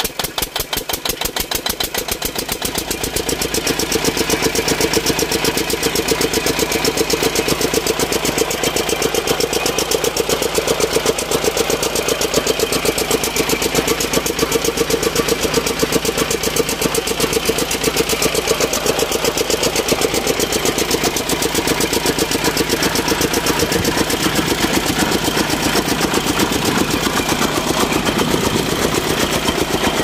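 Eicher single-cylinder air-cooled diesel engine running a flat belt drive. Its rapid, even firing beat grows louder over the first few seconds, then runs steadily.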